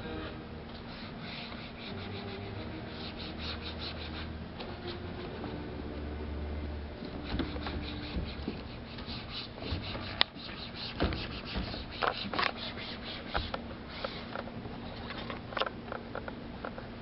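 Bare hands rubbing and scraping paint across a stretched canvas in irregular strokes, with a few taps and a sharp knock about ten seconds in.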